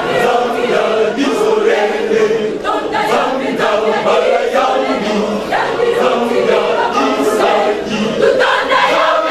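A choir singing together with the congregation, many voices in unison and harmony, with sharp beats running through the singing.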